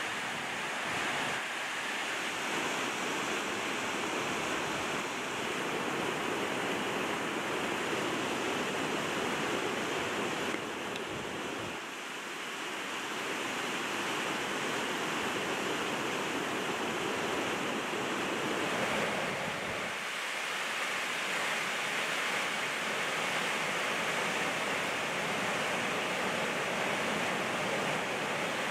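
Fast, rocky mountain river rushing in white water: a steady, even rush of water noise.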